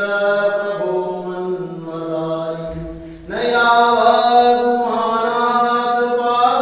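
A group of voices chanting a Shiva chant together in unison, holding long sustained notes; the chant dips briefly about three seconds in, then swells back fuller and louder.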